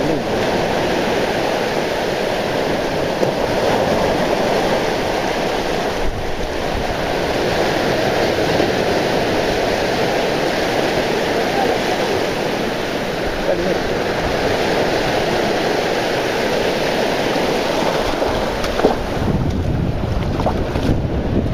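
Sea surf breaking and washing up over the sand in the shallows, with wind rumbling on the microphone, heavier near the end.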